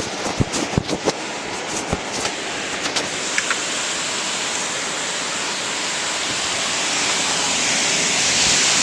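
Heavy wind-driven storm rain: a steady rushing hiss that grows louder over the last two seconds or so. In the first three seconds there is a run of sharp taps and low knocks.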